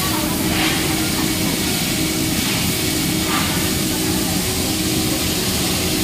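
Running UPS cabinet: a steady rush of cooling-fan air with a constant low hum underneath.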